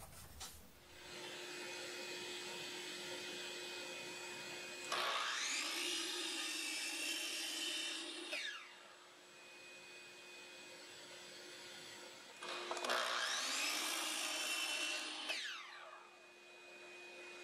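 A shop vacuum starts about a second in and runs steadily, pulling through the dust port of a Milwaukee 12-inch sliding compound miter saw. Twice over it, the saw's motor whines up to speed, cuts through a wooden block, and winds down with a falling whine.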